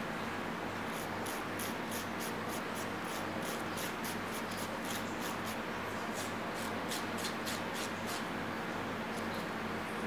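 A nail file rasping across a baby monkey's fingernails in quick short strokes, about three or four a second, stopping shortly before the end.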